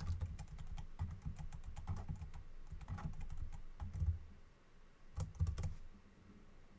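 Typing on a computer keyboard: a fast run of keystrokes for about four seconds, a brief pause, then a few more keystrokes before it stops.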